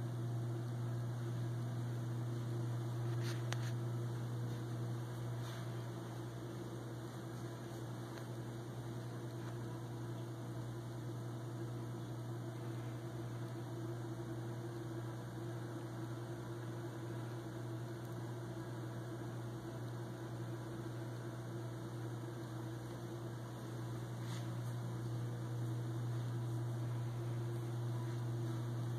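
Steady low electrical hum at mains frequency, unchanging throughout.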